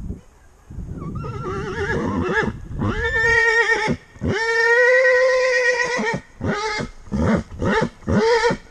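Parrot giving loud, wavering, siren-like wails: two long calls of one to two seconds, then a run of shorter ones.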